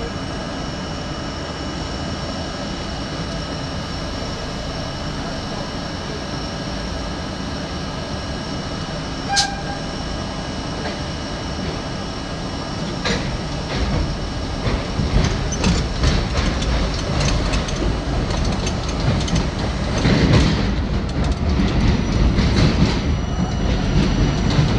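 New York City Subway C train standing at a station with a steady hum, then pulling out into the tunnel. There is one sharp click about nine seconds in. From about halfway the rumble grows louder, with the clickety-clack of wheels over rail joints as the train gathers speed.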